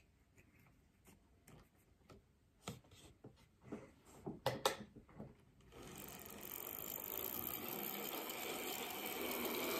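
A few small clicks as an N gauge Fleischmann BR 01 model locomotive is set on the track, then about six seconds in its small electric motor starts up and whirs steadily, slowly getting louder as the controller is turned up. The model has not been run for a while.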